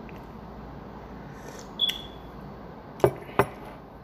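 A ceramic coffee mug handled on a table: one short ringing clink about two seconds in, then two sharp knocks about a third of a second apart as it is set down.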